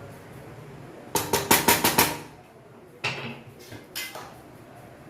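A kitchen utensil clinking and scraping against metal cookware: a quick run of about seven sharp clinks about a second in, then a few scattered knocks.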